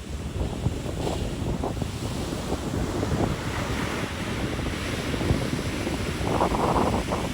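Ocean surf breaking and washing up a beach, with strong wind buffeting the microphone; the hiss of the wash swells in the middle.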